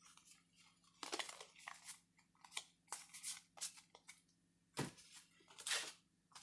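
Magic: The Gathering cards being handled and flipped through: faint, irregular short rustles and slides of card stock, with a slightly louder tap near the end.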